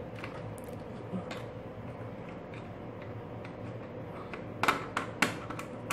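Small clicks and taps of a CPU cooler's metal mounting bars being fitted onto the motherboard's standoffs, with a quick run of sharper clicks about three-quarters of the way through.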